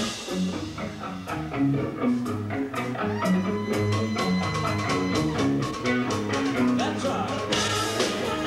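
A rock band playing live, with electric guitar over a moving bass line and steady drum hits; a long note is held from about three to five seconds in.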